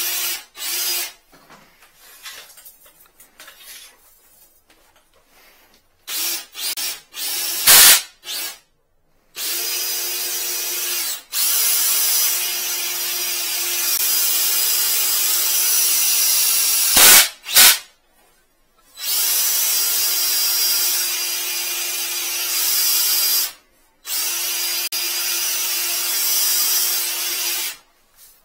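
Cordless drill spinning an 8 mm drain-cleaning shaft off a cable drum to clear a blocked toilet drain. A few short bursts come first, then three long runs of several seconds each with a steady motor tone, broken by short stops. There are loud knocks near the middle.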